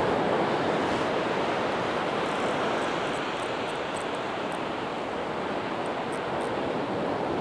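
Sea surf on a pebble beach: a steady rush of waves, with a few faint light clicks through the middle.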